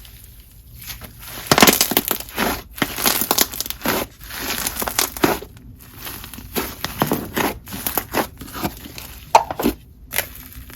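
Hands squishing, pressing and stretching slime close to the microphone, making irregular sticky crackles, pops and squelches.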